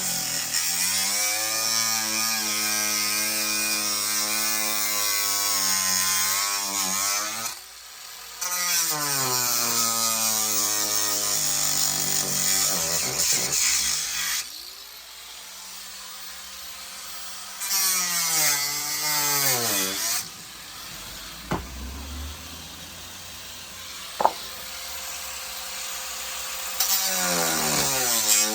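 Electric power tool running in long runs, its motor winding down and speeding back up three times. Two sharp clicks come during the last, quieter pause.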